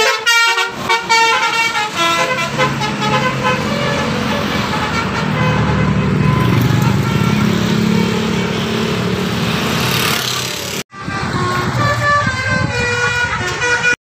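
A coach bus's 'telolet' multi-tone air horn playing a short stepped tune as it passes, then the engine and tyre noise of heavy traffic going by. After a cut about eleven seconds in, another run of multi-tone horn notes sounds over the traffic.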